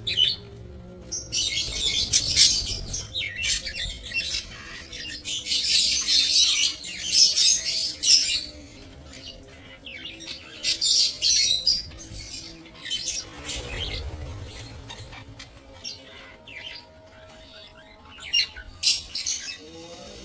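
Flock of budgerigars chattering and squawking in harsh bursts lasting a few seconds, with quieter gaps between.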